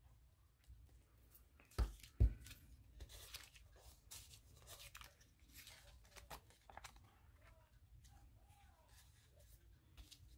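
Two sharp knocks about two seconds in, then magazine paper rustling and tearing in short strokes, with scattered faint clicks of paper being handled.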